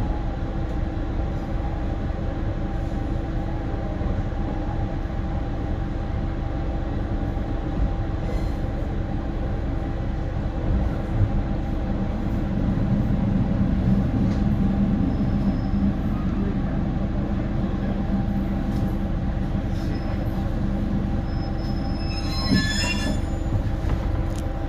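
Isumi Railway Kiha 350 diesel railcar running with a steady hum and rumble. Its wheels give a brief high squeal about two seconds before it reaches the platform.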